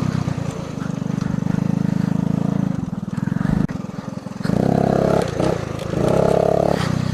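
1979 Honda ATC 110's small single-cylinder four-stroke engine running under throttle as the three-wheeler is ridden. The engine note drops off about three and a half seconds in, then is opened up again in two surges near the end.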